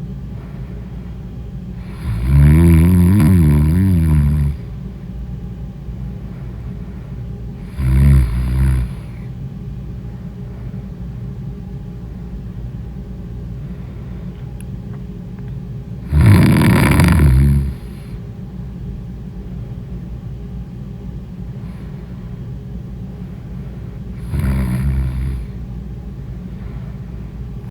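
A sleeping person snoring loudly in deep sleep: four snores about six to eight seconds apart, the first the longest and the last the weakest, over a steady low hum.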